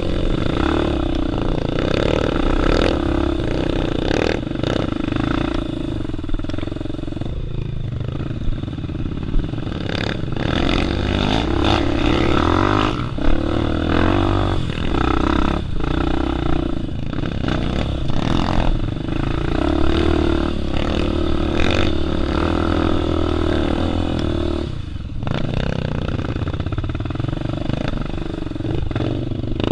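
Dirt bike engine running under load on a rough trail, engine speed rising and falling with the throttle, with frequent clatter and knocks from the bike jolting over ruts.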